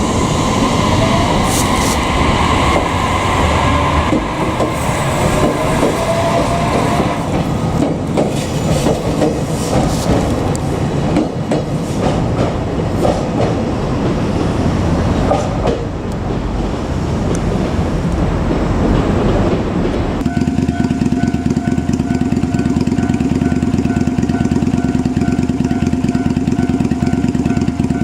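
JR Kyushu 817 series electric train running past, its traction motors whining upward in pitch and its wheels clicking over the rail joints. About two-thirds of the way in, a level-crossing warning bell starts, ringing as a steady repeated electronic tone.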